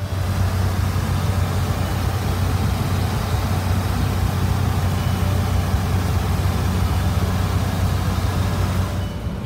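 Cessna 172's piston engine and propeller droning steadily in flight, heard inside the cockpit with a constant rush of airflow.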